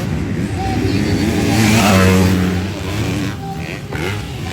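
Motocross motorcycle engines revving as they pass on the track, loudest about two seconds in, then dropping in pitch and fading.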